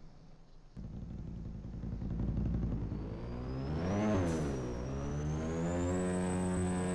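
ATV engine starting up and running, revved once up and back down about four seconds in, then running steadily.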